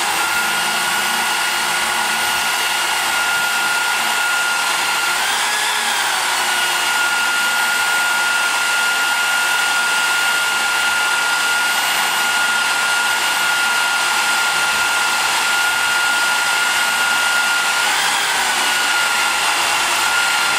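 Electric drill running steadily under load, spinning an end-mill type cutter that cuts down a valve guide boss on a small-block Chevy cylinder head, the bulk-removal step of machining the guides for high-lift cam clearance. Its motor whine briefly rises in pitch twice, about five seconds in and again a couple of seconds before the end.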